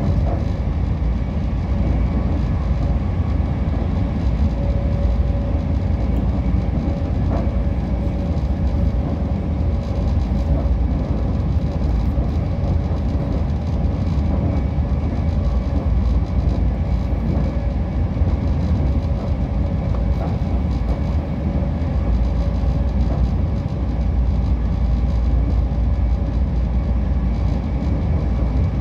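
Steady rumble of a passenger train running at speed, heard from inside the carriage: wheel and track noise with a faint steady hum over it.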